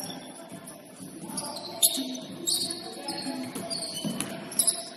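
A basketball bouncing on a gym floor during a game: a few sharp bounces, the loudest a little under two seconds in, over players' voices in the hall.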